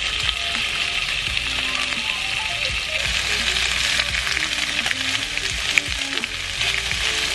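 Shredded pulled pork and its cooking juices sizzling steadily in a hot frying pan as the meat is browned, stirred and spread with two forks.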